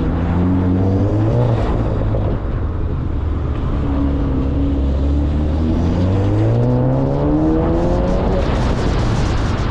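Mk7.5 Jetta GLI's turbocharged 2.0-litre four-cylinder being driven hard on an autocross course. The revs climb, drop away about 1.5 s in, then climb steadily again from about 6 s before falling off near the end.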